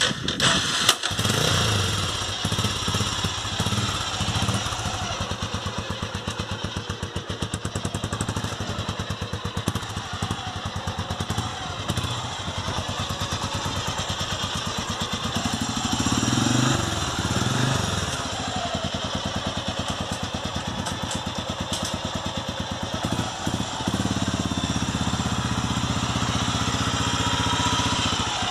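Honda XBR 500 single-cylinder four-stroke motorcycle engine running at idle just after starting, with an even, steady beat. Its carburettor has just been ultrasonically cleaned and fitted with a repair kit, and it is running normally. The revs rise briefly a little past halfway.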